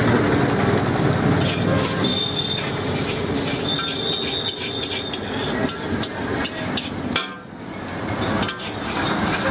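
Slotted metal spatula repeatedly scraping and clanking against a large wok as chicken, cabbage and capsicum are stir-fried, with frying sizzle underneath.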